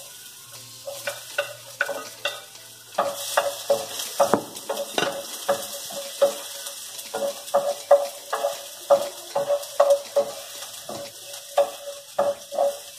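Chopped garlic sizzling in hot oil in a wok, with a wooden spoon stirring and knocking against the pan in regular strokes, about two a second.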